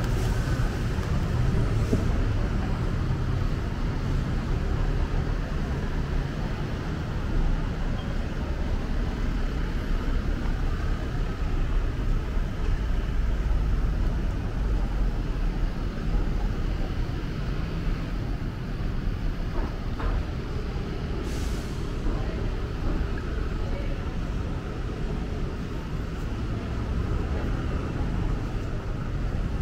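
City street ambience: a steady low rumble of road traffic, with one short hiss about two-thirds of the way through.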